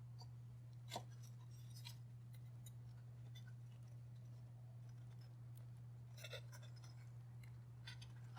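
Quiet workshop with a steady low hum, broken by a few faint clicks and light knocks as the birdhouse's wooden roof pieces are handled and lined up. The clearest click comes about a second in, and there is a short cluster of them near the end.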